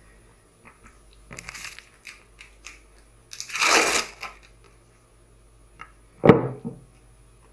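Rustling and crinkling as lasagna sheets are handled, pressed down and laid into a glass baking dish: two bursts, the second louder, then a single sharp knock about six seconds in.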